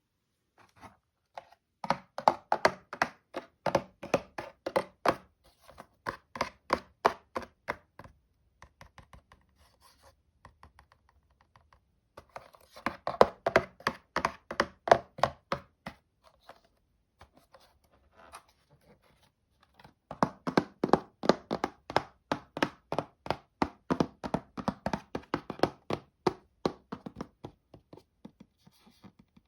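Rapid sharp knocks, about four a second, in three runs of several seconds each, with faint scattered ticks in the pauses between them.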